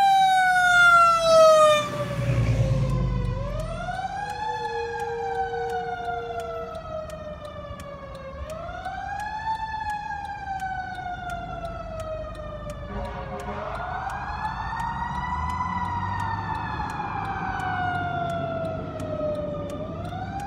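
Fire engine siren in wail mode: it rises quickly and falls slowly, over and over, about every five seconds, fading as the truck drives away. A low rumble comes about two seconds in.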